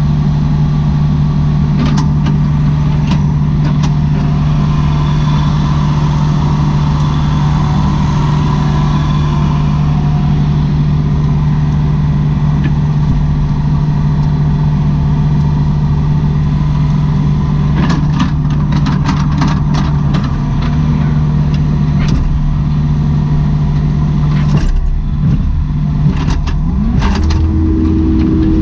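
Kubota SVL75-2 compact track loader's diesel engine running steadily at working speed. Scattered knocks and rattles from the machine come in the second half, and the engine note shifts near the end.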